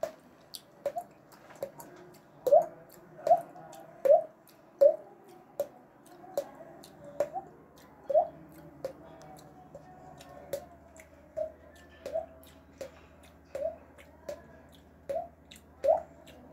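Water-droplet sounds made with the mouth: a steady string of short, hollow pops, each rising quickly in pitch, about one every three-quarters of a second, some louder than others.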